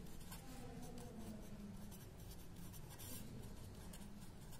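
Pen tip writing on paper: faint, continuous scratching of short handwritten strokes as a few words are written out.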